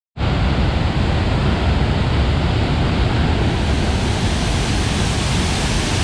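Waterfall in heavy flood: a loud, steady rush of falling water.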